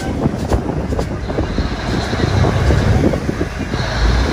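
A river passenger boat's engine running with a steady low rumble under the rush of water and wind, the rumble growing stronger about four seconds in.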